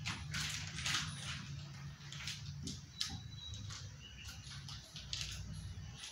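Light clicks and taps of small kitchen containers and utensils being picked up and set down on a table, over a steady low hum.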